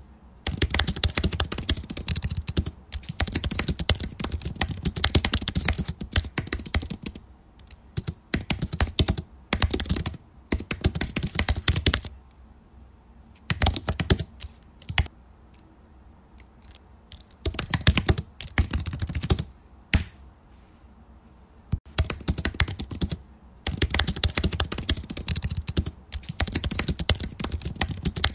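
Typing on a computer keyboard: rapid runs of key clicks, broken by several pauses of one to two seconds in the middle.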